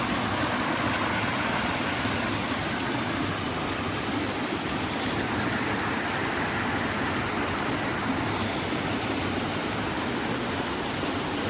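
Creek water rushing steadily, an even hiss with no let-up.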